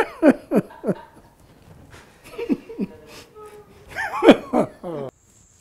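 Laughter in three bursts of short, falling "ha-ha" notes, cutting off suddenly near the end.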